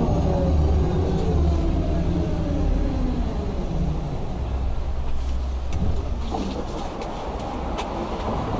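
Electric tram braking: the whine of its traction motors glides down in pitch and fades over the first few seconds over a low rumble. A few clicks from the wheels on the rails follow as it slows toward a stop.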